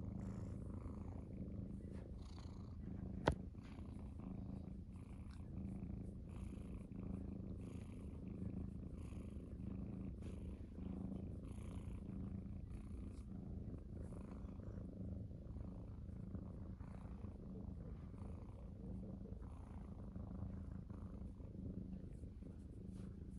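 Munchkin cat purring close up while being stroked, a steady low rumble that goes on throughout, with one sharp click about three seconds in.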